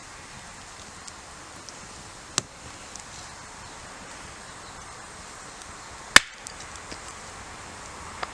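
Two sharp knocks, about four seconds apart, the second louder, with a few faint ticks in between over a steady outdoor hiss.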